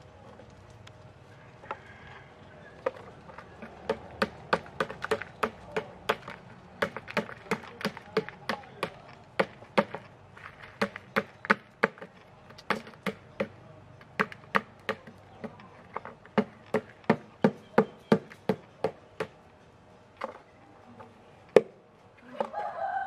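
A long, regular run of sharp knocks, about three a second, thinning out over the last few seconds. A rooster starts crowing right at the end.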